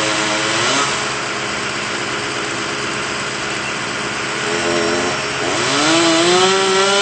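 Chainsaw engine revving up and easing back down in long smooth sweeps: once at the start and again from under a second before the end, after a short blip. In between, an engine idles steadily.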